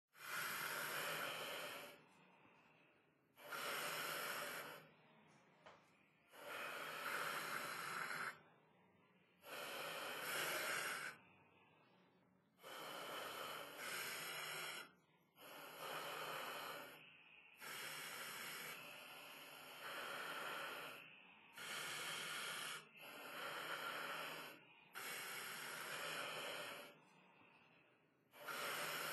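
A sleeping puppy's noisy breathing, one breath about every three seconds.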